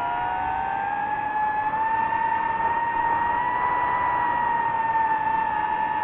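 Quadcopter drone's motors and propellers whining steadily. The pitch rises slightly through the middle, then eases back down.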